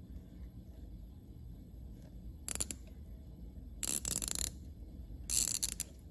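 Ratcheting T-handle tap wrench clicking in three short bursts as the tap is turned in a freshly tapped thread in a chainsaw engine case.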